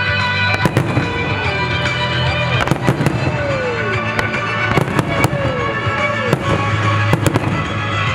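Aerial firework shells bursting in irregular clusters of sharp bangs, with the display's music soundtrack playing steadily underneath.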